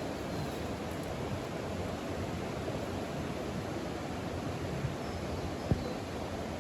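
Steady outdoor rushing noise, with one short low thump about five and a half seconds in.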